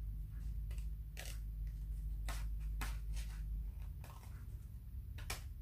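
Small child's scissors snipping into a strip of paper: about half a dozen separate short cuts, unevenly spaced, over a low steady hum.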